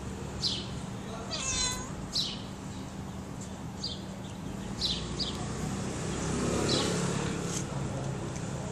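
A cat meowing: one short meow about a second and a half in, and a longer, lower call later on. Short high bird chirps repeat throughout.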